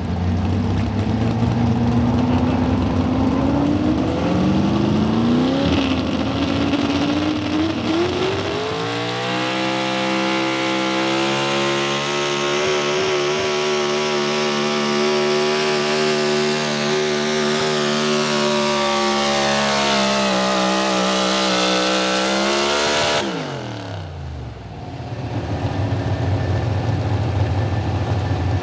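Pro Stock 4x4 pulling truck's carbureted big-block V8, on a single four-barrel carburetor, at full throttle dragging a weight-transfer sled. The revs climb over the first several seconds, dipping once and rising again, then hold a steady high-rpm note. A few seconds from the end the engine is shut off the throttle suddenly, the revs fall fast, and it drops to idle.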